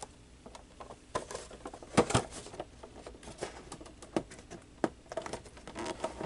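Fingers picking and scratching at the top flap of a cardboard box, with scattered taps and clicks and denser crinkling of the card near the end.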